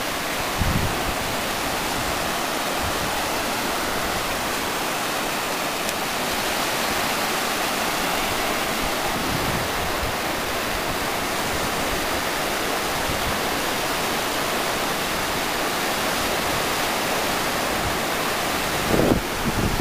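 Sea surf breaking and washing up a sandy beach, a steady rushing noise. Near the end, wind buffets the microphone with low rumbles.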